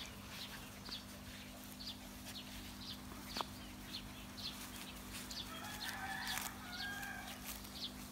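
Faint outdoor bird calls: short high chirps repeating about twice a second, and a longer pitched call between about five and a half and seven seconds in, over a low steady hum.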